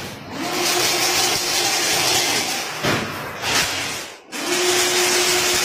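Semi-automatic chain link fence weaving machine running: a steady mechanical whirring with a held hum, broken by a couple of clanks about three seconds in and a brief lull just after four seconds, after which the hum starts again.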